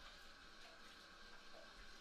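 Near silence: faint room tone.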